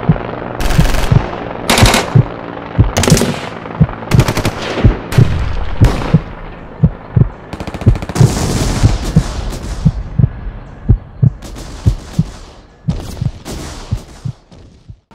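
Film sound effects of battle: bursts of machine-gun fire and single gunshots over a regular low heartbeat thump, thinning out and fading in the last few seconds before cutting off suddenly.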